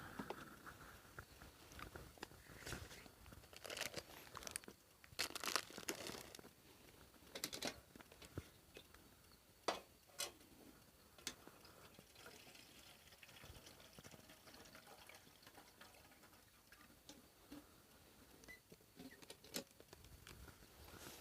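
Faint, scattered crackles, rustles and sharper clicks, clustered in the first half and again near the end, with a quiet stretch between.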